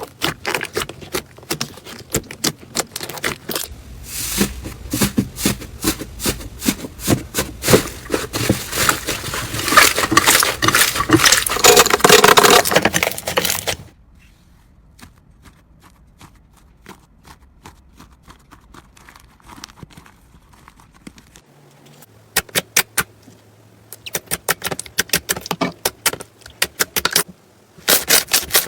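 Slime being squeezed and poked by hand, giving dense crackling and popping clicks that grow louder toward the middle. About halfway through the clicking stops and it goes quiet, then sharp clicks and pops return near the end.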